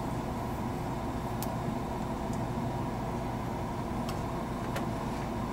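Electric soldering gun humming steadily while it heats the solder joint between the alternator's voltage regulator and rectifier. A few faint ticks sound over the hum.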